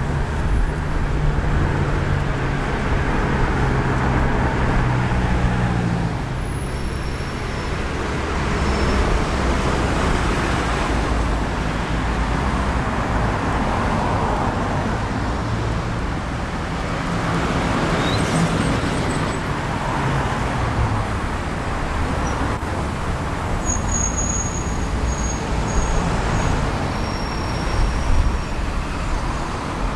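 Street traffic on a city avenue: motor vehicles passing in a steady rumble, one engine's hum standing out for the first six seconds or so.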